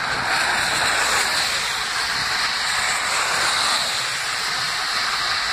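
Steady hiss of a heavy downpour, with traffic swishing through standing floodwater on the road.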